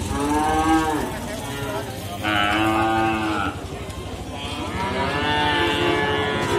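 Young cattle mooing: three long calls, each rising and falling in pitch.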